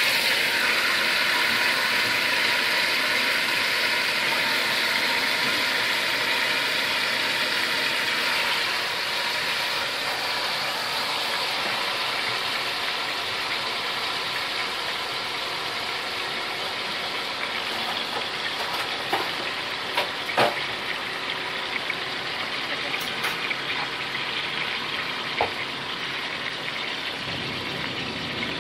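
Pieces of poultry frying in hot oil in a stainless steel pot: a steady sizzle, loudest at the start, that slowly dies down. A few sharp clicks come in the second half.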